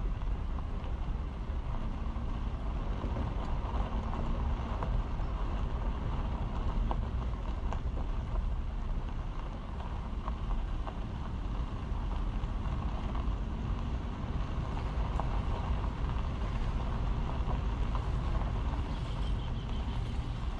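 A car driving: a steady rumble of road, engine and wind noise, with a few faint clicks.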